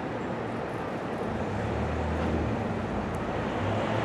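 Steady background rumble and hiss, with the low rumble swelling briefly in the middle.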